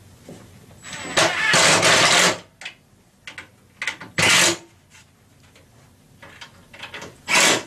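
Cordless drill driving screws into the cabinet's metal brackets in three bursts, a long run of about a second followed by two short ones, with small clicks of handling between.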